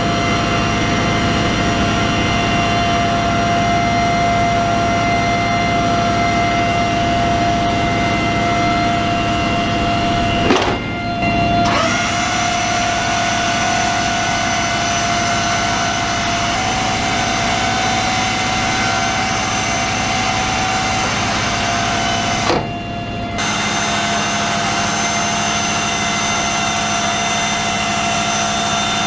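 Tracked MLRS rocket launcher vehicle running steadily, its engine drone overlaid by a constant high whine from its machinery, during a reload of the launcher. The sound dips briefly about ten seconds and about twenty-two seconds in, and the whine shifts slightly in pitch after each dip.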